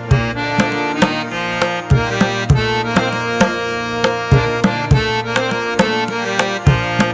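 Instrumental background music: regular drum strokes, about two a second, over sustained melodic notes.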